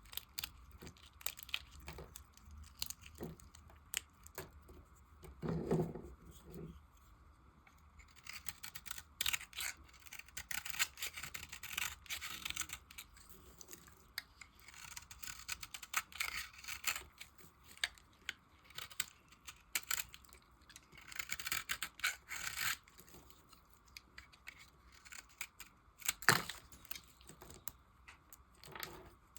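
Blade cutting and scraping bars of soap scraps, in irregular bursts of crisp, scratchy strokes with scattered sharp clicks. One louder, sharper click comes near the end.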